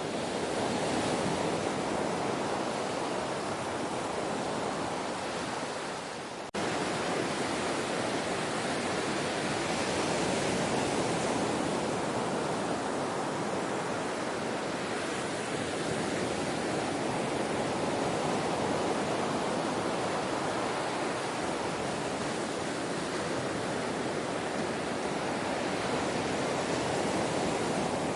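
Ocean surf washing in a steady, continuous hiss with slow, gentle swells. About six and a half seconds in, the sound dips briefly and cuts back in abruptly.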